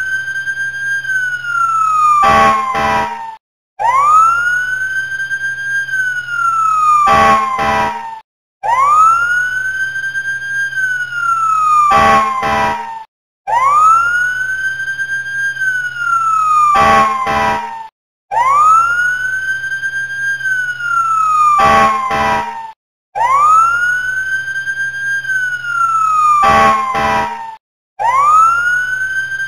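Fire engine siren sound effect playing on a loop. A wail rises, holds and then falls in a cycle that repeats about every five seconds, with a quick run of short blasts in each cycle and a brief gap between repeats.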